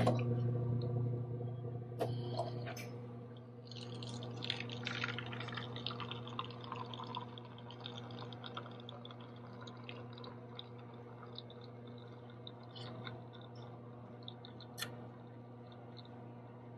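Self-service coffee machine running with a steady hum, with a sharp click about two seconds in. From about four seconds on, coffee pours in two thin streams into a paper cup, a crackly trickle that slowly grows fainter.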